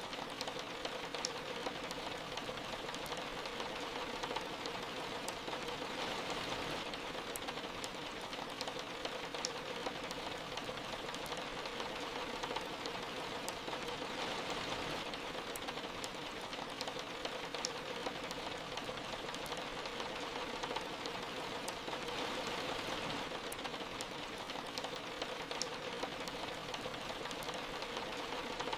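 Soft rain falling steadily: an even hiss with scattered sharp ticks throughout.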